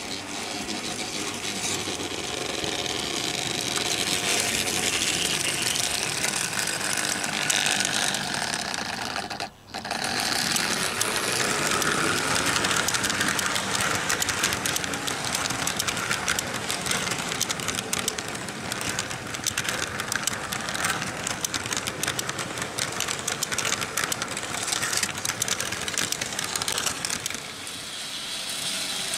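Märklin H0 model trains running on metal M-track: a steady, dense clicking and rattling of metal wheels over the rail joints and points, with the whir of the locomotives' electric motors. The sound drops out briefly about nine and a half seconds in.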